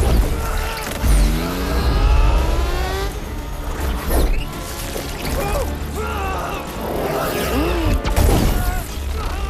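Film sound mix of a motorcycle chase: a motorcycle engine accelerating hard, its pitch rising for a couple of seconds, with car engines around it, over a dramatic score with a heavy bass rumble.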